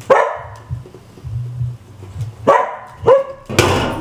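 A dog barking: one sharp bark at the start, then three more close together in the last second and a half.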